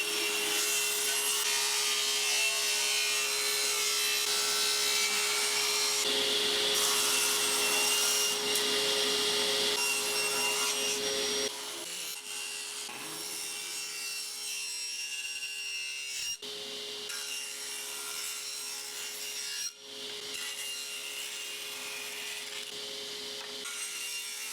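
Power woodworking machinery cutting and milling a maple board, a steady motor hum under the noise of the blade in the wood. The sound changes abruptly several times as one operation gives way to another.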